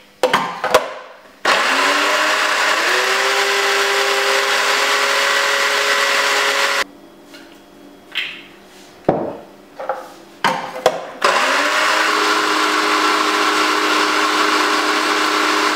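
Electric food processor blitzing chopped onion, lemongrass and chillies into Thai red curry paste, in two runs of about five seconds each. Its motor whine rises as it spins up and then holds steady, and a few knocks and clicks come before and between the runs.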